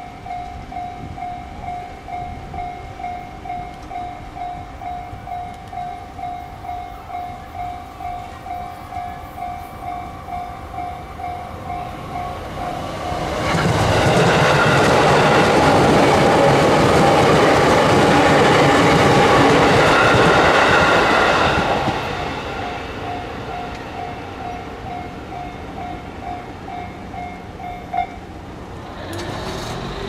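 A Japanese level-crossing warning bell rings steadily at about two strokes a second. From about a third of the way in, an electric train passes for some eight seconds, its wheels loud on the rails and drowning out the bell. The bell rings on after the train has gone and stops with a click near the end.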